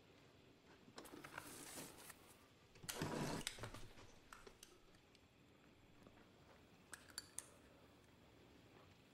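Faint handling sounds of small objects: a soft rustle about a second in, a louder scraping rustle about three seconds in, then three quick small clicks near seven seconds.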